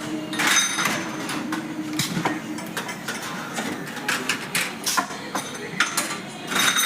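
Sheet-metal ceiling fan blades and parts clinking and clattering as they are handled, a run of irregular knocks, each with a short metallic ring.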